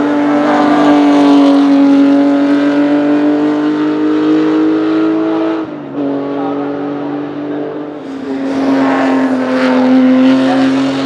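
Ferrari 250 GTO's V12 engine running hard at high revs on track, its pitch climbing slowly, then dropping sharply with a short dip in level about six seconds in, as at a gear change, before pulling again and growing louder as the car passes close near the end.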